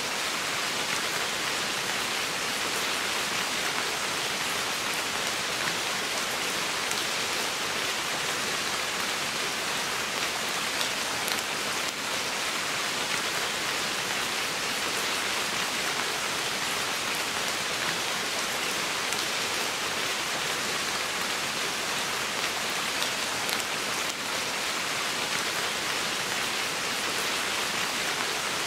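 Steady rain falling on forest foliage: an even hiss with faint scattered drop ticks.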